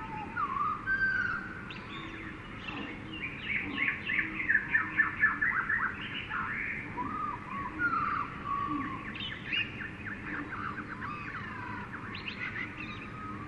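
Jungle ambience of many birds calling together: slurred whistled notes throughout, with a loud fast run of chirps around the middle.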